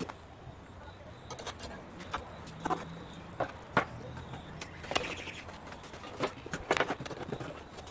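Irregular light metallic clicks and taps from a lawnmower's height-adjustment bar and its pins and clips as they are handled and fitted at the deck, about a dozen scattered knocks.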